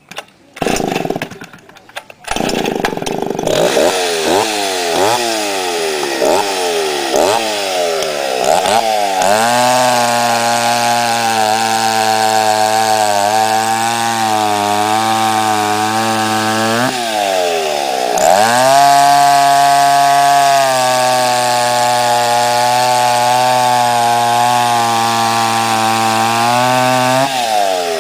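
Vintage Stihl S10 two-stroke chainsaw, a low-revving, high-torque saw, starts with a run of quick throttle blips. It then settles to a steady, lower pitch under load as it cuts through a log. It revs up sharply and dips for a moment about two-thirds through, then drops back into the cut, and revs up again near the end as the cut finishes.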